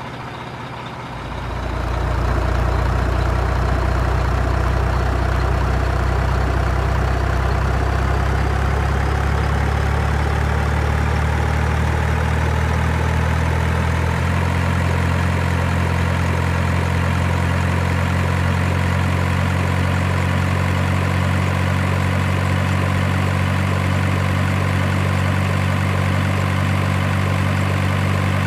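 Truck engine sound idling steadily. It gets louder about a second in and shifts slightly in pitch about halfway through.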